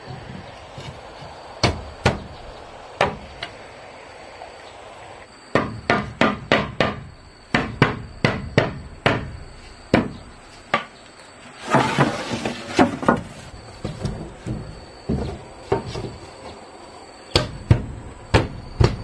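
Hammer driving nails into wooden wall boards: sharp strikes in quick runs with pauses between them. Around the middle there is a brief rustling scrape.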